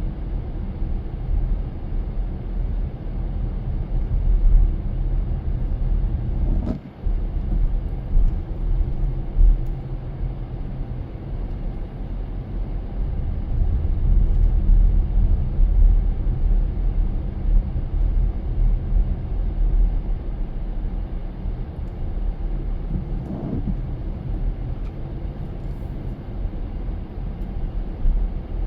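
Car driving: a steady low rumble of engine and road noise, with a brief dip about seven seconds in.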